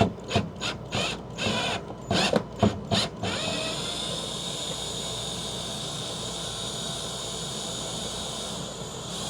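Power drill backing a long, fully threaded screw out of an RV floor: a run of short bursts, about three a second, for the first three seconds, then the drill runs steadily as the screw unwinds.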